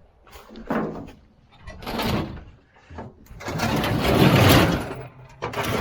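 Refrigerator scraping and knocking as it is heaved and shifted by hand, in several swells of noise, the longest and loudest about four seconds in.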